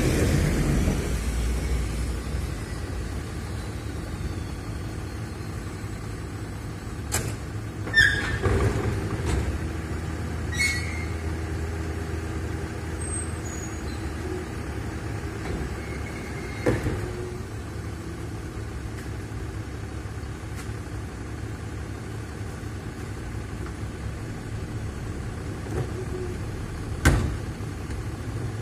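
Side-loader recycling truck's diesel engine idling steadily, with a bus engine's rumble fading out at the start. The truck's side bin lift works, with a few short metallic squeals, and wheelie bins clank and bang sharply about five times.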